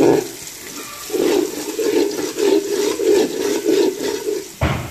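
Chopped onions and garlic paste frying and bubbling in hot oil in a cooking pot as they brown, swelling in waves as a spoon stirs them. A sharp knock comes near the end.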